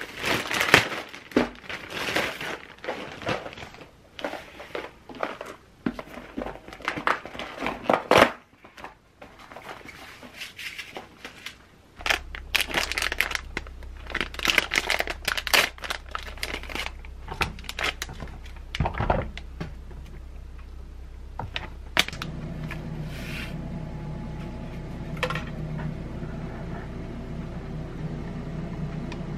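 Thin plastic packaging crinkling and tearing as a plastic courier mailer bag is pulled open, then a plastic-wrapped scone packet is handled. From about twelve seconds in a steady low hum runs underneath, growing stronger near the end.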